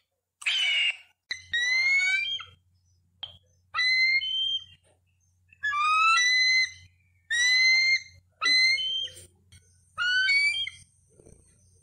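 Eagle calling: a run of about seven short, rising yelps spaced roughly a second and a half apart, after one short harsh screech near the start.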